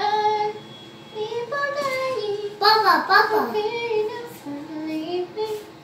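A high voice singing a short tune in four phrases, with held notes that slide up and down and brief breaks between them.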